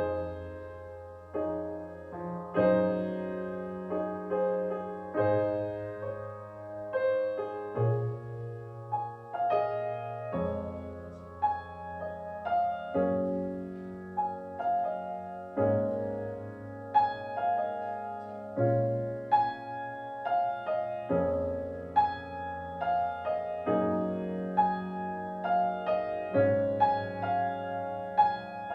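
Instrumental piano music: a slow, steady progression of sustained chords, each changing about every two and a half seconds over a low bass note, with a melody of struck notes above.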